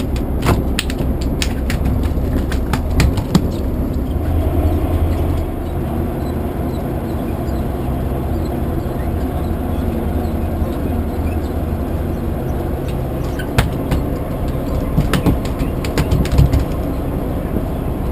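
Boat engine running steadily with a low hum, with scattered knocks and clicks near the start and again toward the end.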